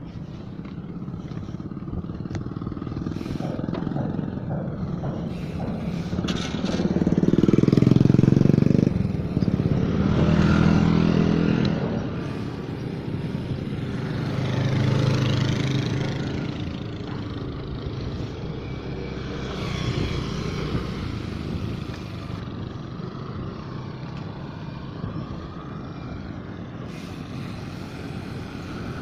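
Motor vehicles passing close by on the road. Their engines swell and fade, loudest about eight and eleven seconds in and again around fifteen seconds, over steady background noise.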